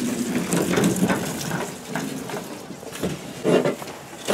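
Walk-behind gas lawn mower being pulled by its handle across a shed floor, its wheels and frame rattling and scraping unevenly, with a louder knock near the end as it bumps along.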